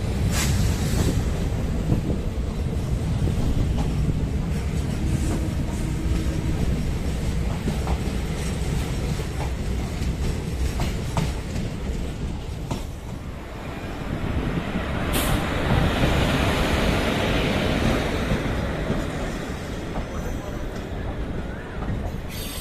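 DEMU (diesel-electric multiple unit) passenger train running on the rails: a steady low rumble with scattered clicks of the wheels. From about two-thirds of the way in, a louder hiss of wheel and rail noise builds up.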